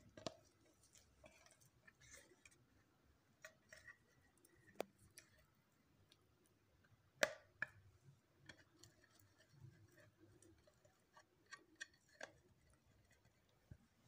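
Faint, scattered clicks and light taps of small fluted metal tart tins being handled and set down while they are buttered, with one sharper clink about seven seconds in.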